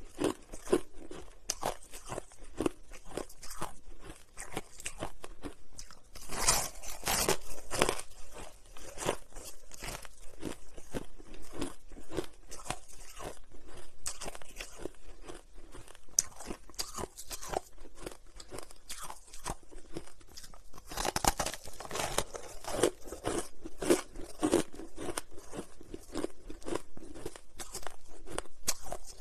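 Close-miked crunching and chewing of hard, frosty pink freezer ice: a dense, continuous run of sharp crackles as chunks are bitten off and ground between the teeth. The bites get louder about a quarter of the way in and again around three quarters of the way through.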